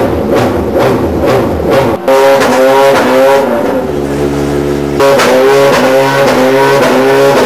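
A regular beat for about the first two seconds, then a sudden change to a Ferrari GT race car's V8 engine being revved in the pit garage. Its pitch climbs and falls with each blip of the throttle, with a spell of steadier running in the middle.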